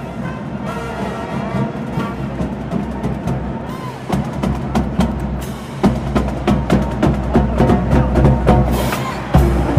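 Live school band playing: sustained horn tones at first, then drums and percussion come in with sharp strikes that grow louder and busier about halfway through.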